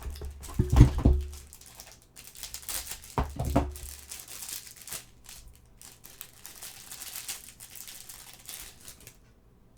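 Plastic packaging crinkling and rustling as a small parts bag is handled, with two heavy handling bumps in the first few seconds; the crinkling stops abruptly about nine seconds in.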